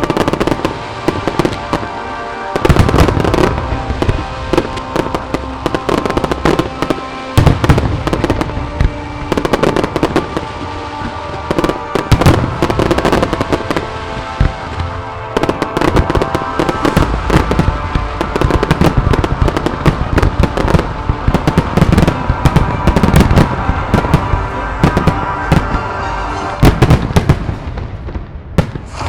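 Aerial fireworks bursting in rapid, irregular volleys of sharp bangs and crackles, over music playing along with the show.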